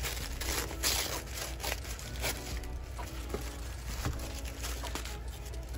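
Tissue paper rustling and crinkling as it is unfolded and pulled back from around the contents of a gift box: a run of short papery crackles.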